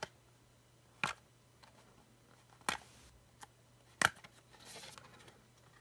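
Hard plastic phone case frame being handled: a few sharp plastic clicks and taps spread about a second apart, the loudest about four seconds in, with a soft brief rustle just after it.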